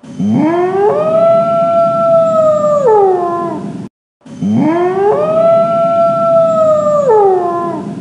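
Wolf howling: one howl that rises quickly, holds a steady pitch for about two seconds, then falls away, played twice with the same shape, the second starting about four seconds in.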